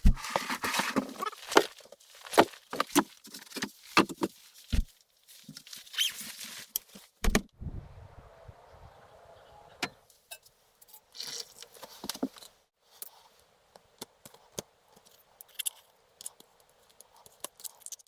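A run of irregular sharp clicks and knocks, like small objects being handled or set down. They come thick and loud in the first half and thin out to scattered taps after about eight seconds.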